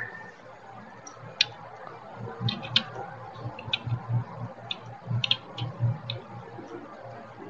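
Scattered, irregular sharp clicks, about a dozen, from someone working a computer, over a faint low pulsing hum.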